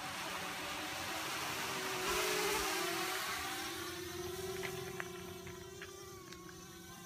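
Hovership 250mm racing quadcopter's four motors and propellers buzzing in flight. The whine swells and rises in pitch about two seconds in as it throttles up, then slowly fades as the quad flies off.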